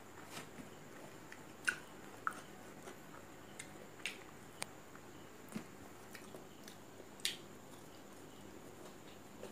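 Close-up eating sounds: a person chewing mouthfuls of rice, with irregular sharp wet smacks and clicks from the mouth.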